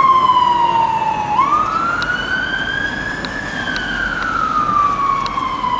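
Fire engine siren sounding a slow wail. The pitch falls, sweeps up quickly and keeps rising, then falls slowly again over a few seconds, and starts to climb once more near the end.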